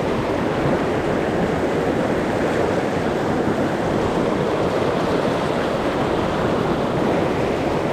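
Fast-flowing mountain river rushing steadily, an even hiss of water with no breaks.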